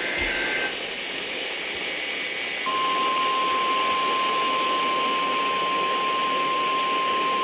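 Weather radio receiver playing the weekly test over heavy static hiss. The last of a two-pitch SAME data burst ends within the first second. About two and a half seconds in, the NOAA Weather Radio 1050 Hz warning alarm tone comes on and holds steady.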